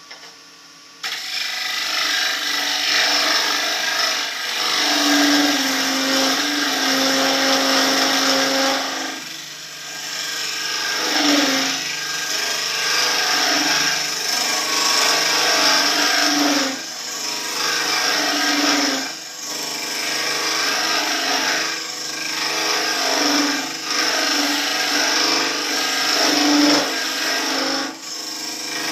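Turning tool cutting into a spinning maple workpiece on a wood lathe, a loud rough shaving noise that starts about a second in and comes in long passes with brief breaks between them.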